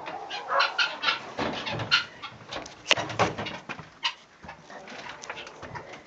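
Short animal calls mixed with a series of sharp clicks and knocks.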